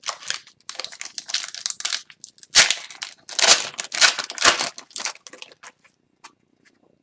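Plastic-foil trading card pack wrapper crinkling and tearing in irregular bursts for about six seconds, then a few faint clicks.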